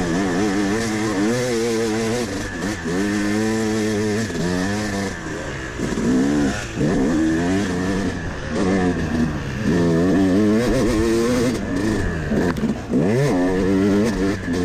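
Yamaha YZ250 two-stroke dirt bike engine being ridden hard on a dirt trail. It revs up and down in pitch every second or two as the throttle is worked.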